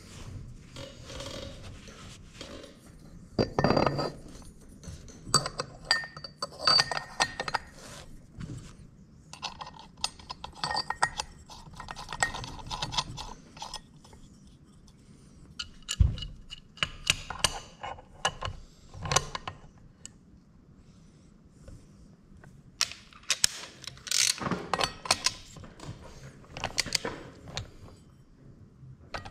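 Scattered metallic clinks, taps and scrapes of hand tools and aluminium engine parts being handled during bench assembly of a Predator 212 small engine. The sounds are intermittent, with a few short ringing metal notes among them. Near the end the cast aluminium flywheel is being fastened with a long breaker bar.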